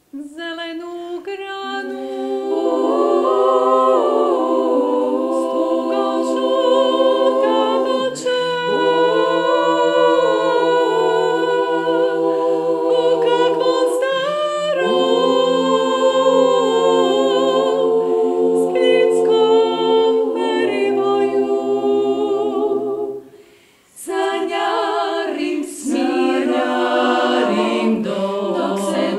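Women's klapa, a Dalmatian a cappella vocal ensemble, singing in close harmony. The lower voices hold long notes under the moving melody. The singing breaks off briefly about three-quarters of the way through, then goes on.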